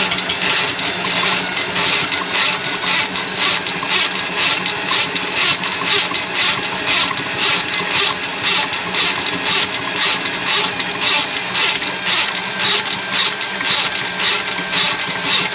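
Electric drain auger running in a kitchen sink drain, its motor holding a steady pitch while the spinning cable clatters in an even rhythm of about two to three beats a second.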